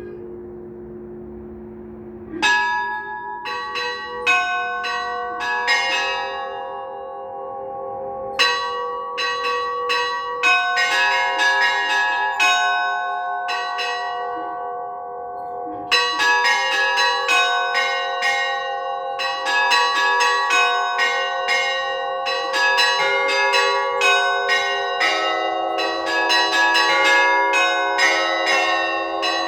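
Orthodox church bells rung in a festive peal before the Liturgy. A low bell's tone hangs and fades at first; about two and a half seconds in, smaller bells start striking in quick patterns, and after a short lull they build into a dense, continuous peal from about halfway through.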